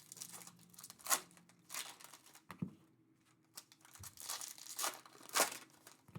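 Trading card packaging being torn open and crinkled by hand, with irregular rustles and rips. The sharpest rips come about a second in and again about five and a half seconds in.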